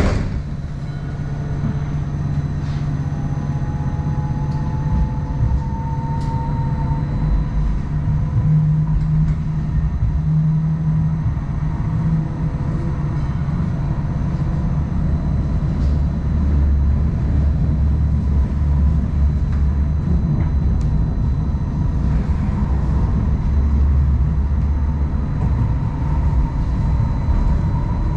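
A Light Rail Phase I train running along the track: a steady low rumble of wheels and running gear, with a whine that rises in pitch a few seconds in.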